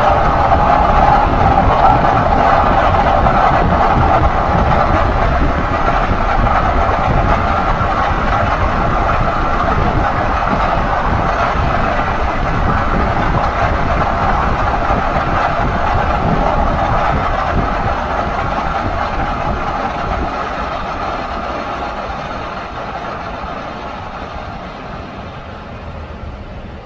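2016 Ford F-150 pickup running at road speed: a steady drone over low rumble that slowly fades over the last part, the noise the owner takes for a dry bearing.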